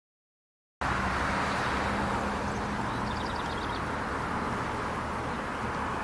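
Steady road traffic noise that cuts in abruptly about a second in, with no siren sounding.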